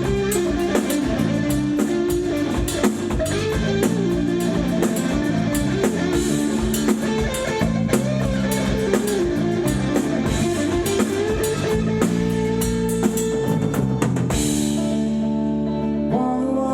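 Live rock band playing an instrumental passage on electric guitar, bass and drum kit. Near the end the drums drop out, leaving sustained guitar chords.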